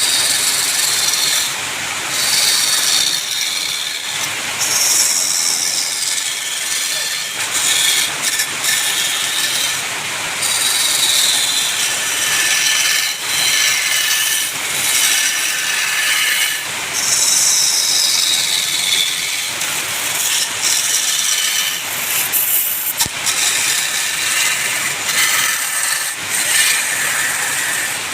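Wood lathe spinning a workpiece while a turning tool cuts into it: a steady, loud scraping shaving sound whose pitch drifts up and down as the cut moves along the wood.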